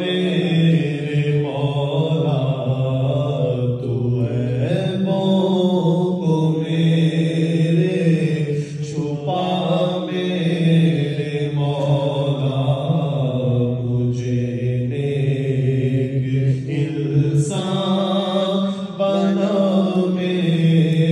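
A man's solo chanted recitation of an Urdu munajat (devotional supplication), sung into a microphone in long, sustained, melodic phrases over a steady low hum.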